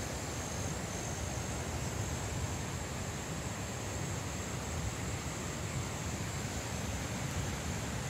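Steady high-pitched insect drone over a low wind rumble on the microphone.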